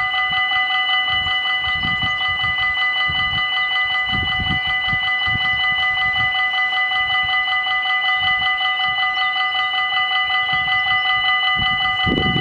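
Belgian level-crossing warning bells ringing steadily with a rapid, even beat, warning that a train is approaching and the barriers are about to lower.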